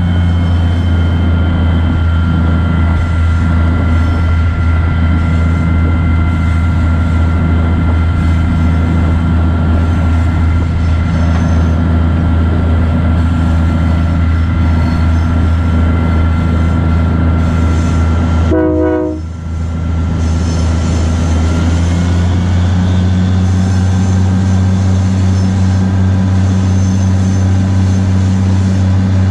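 GE 80-ton diesel-electric switcher locomotive on the move: a steady, loud low engine drone with a thin steady whine above it. About two-thirds of the way in the sound dips briefly, and the whine then settles slightly higher.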